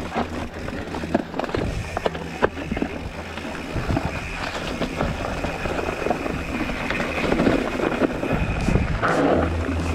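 Mountain bike ridden along a rough dirt singletrack, heard close up from a camera on the rider: a steady rumble of tyres on the trail with frequent clicks, rattles and knocks from the bike.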